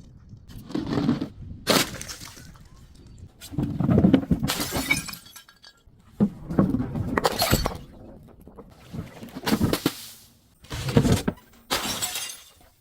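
Glass bottles breaking and being crushed, shattering and crunching in a series of separate crushes every second or two.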